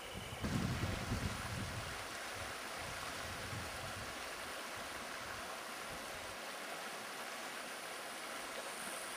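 Shallow mountain stream running over sand and pebbles: a steady rushing of water. A low rumble, like wind on the microphone, comes and goes through the first two seconds.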